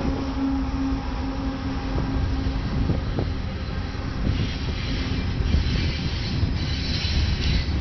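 A diesel freight locomotive passes close by with a steady engine hum that fades after about three seconds. Covered hopper cars follow, their wheels rumbling, clattering and hissing on the rails.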